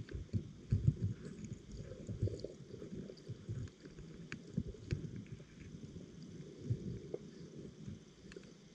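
Underwater sound through a GoPro's waterproof housing: irregular muffled low thumps and rumbling of moving water, with a few faint scattered clicks.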